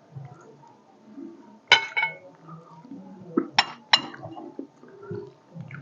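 Dishes clinking during a meal: a ringing clink, then two more in quick succession a couple of seconds later, with soft handling sounds of food and plates between them.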